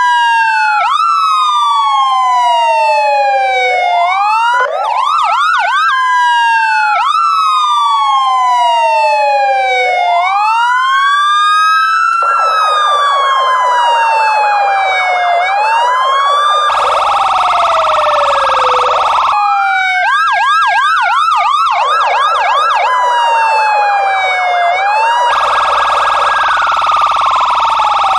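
Police car electronic siren cycling through its tones: slow wails rising and falling about every three seconds, quick yelps at about four a second, and spells of a fast steady warble. Twice, near the middle and near the end, a harsher, lower blaring tone sounds for two to three seconds over it.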